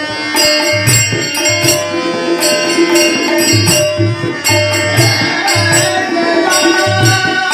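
Instrumental passage of a devotional bhajan: tabla playing a steady rhythm with deep bass strokes under held melodic tones and bright percussion, with no singing.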